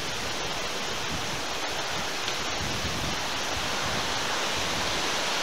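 Strong thunderstorm wind gusting through tree crowns, a steady rushing noise that grows slightly louder toward the end.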